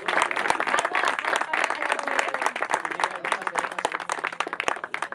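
People applauding with their hands, with a voice faintly underneath; the clapping thins out near the end.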